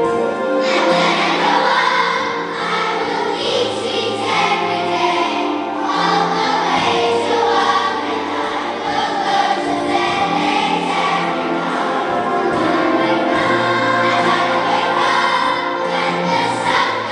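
Large children's choir singing together with a concert orchestra of strings, winds and piano, continuous music throughout.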